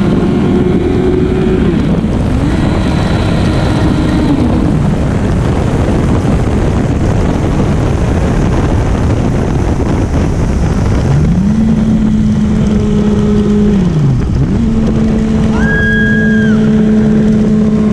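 Sport motorcycle riding at highway speed, heard from the rider's seat: a steady rush of wind over the rider and the engine's drone. The engine note steps up in pitch, holds and drops back a few times.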